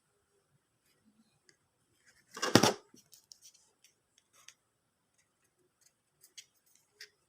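A loud clack about two and a half seconds in, followed by scattered light clicks and taps of small hard objects being handled.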